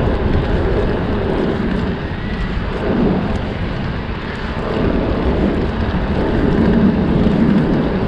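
Steady rumbling noise of a dirt jump bike being ridden: tyres rolling on the pavement and wind on the microphone, swelling and easing every second or two.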